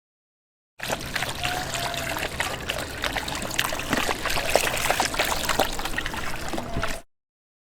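Water trickling and splashing in a steady, busy run of small drips and bubbles. It starts abruptly about a second in and cuts off sharply near the end.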